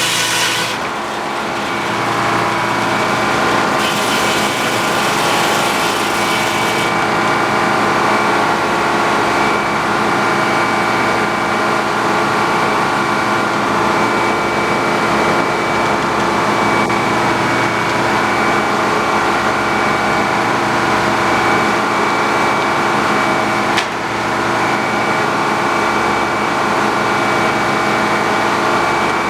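A sawmill's engine running steadily under continuous load, with a single sharp knock about 24 seconds in.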